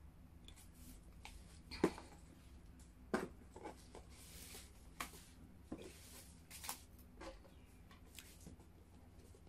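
Hands unwrapping a cardboard gift box: a ribbon pulled loose and the lid lifted off, heard as faint rustles and light knocks, the loudest two about two and three seconds in.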